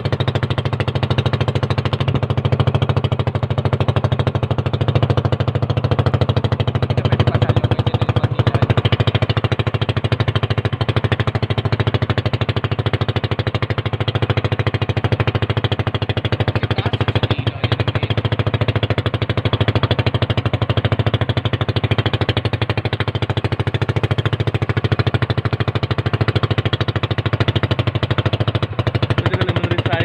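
Small engine of a motorized outrigger boat running steadily at cruising speed.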